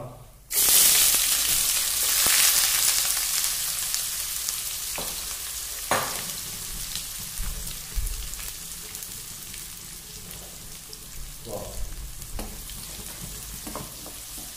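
Sliced onions hitting hot ghee in a pan and frying with a loud sizzle that starts suddenly about half a second in and slowly dies down. Near the end a wooden spatula knocks against the pan a few times as the onions are stirred.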